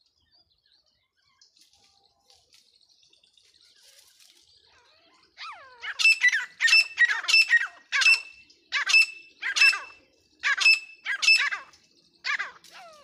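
An animal calling loudly over and over, about a dozen harsh calls that start about five seconds in, come roughly twice a second at first and then slow a little. Before them there are only a few faint chirps.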